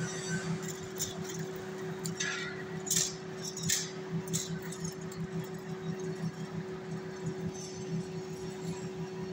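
Metal lathe running with a steady motor hum while it spins a sheet-metal fan rotor between the chuck and the tailstock centre. A few sharp metallic clinks come between about two and four and a half seconds in.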